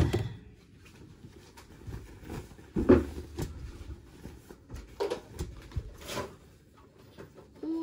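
Houndstooth fabric of a sewn tote bag rustling and shifting as it is handled and smoothed on an ironing board, with a few soft knocks, the loudest about three seconds in.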